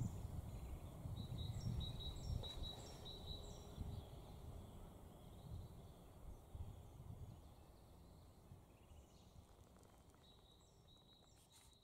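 Forest ambience: a small bird calling in short, repeated high chirps over a low rumble, the whole slowly fading out.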